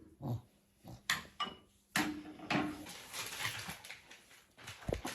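Scattered knocks, clicks and clatter of household items being handled, like dishes and cupboard doors during tidying.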